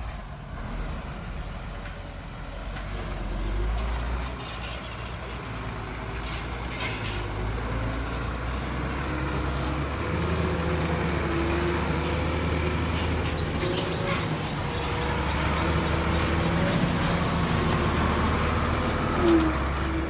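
Heavy diesel engine running steadily, working harder and louder from about halfway through, with a brief louder sound near the end.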